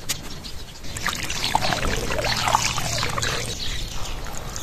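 Water pouring and splashing, swelling about a second in and easing off after a couple of seconds.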